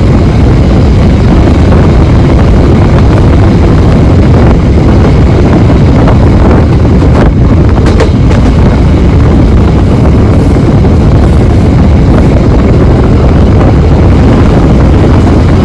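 Passenger train running at speed, a loud steady rumble of wheels and running gear, with a couple of sharp clicks about seven and eight seconds in.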